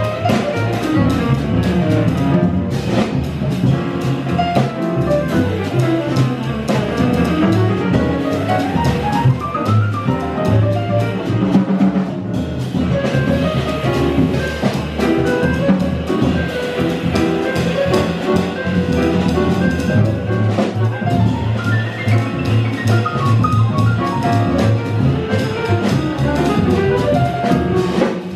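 Live jazz from a quartet of piano, saxophone, upright bass and drum kit playing without pause, the drums played with sticks on cymbals and drums.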